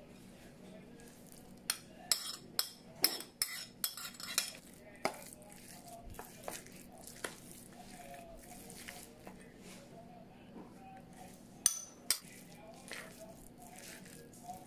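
Metal spoon clinking and scraping against a stainless steel mixing bowl and a ceramic bowl while chopped vegetables are scraped into minced pork filling and stirred. A quick run of sharp clinks comes between about two and four seconds in, with two more about twelve seconds in.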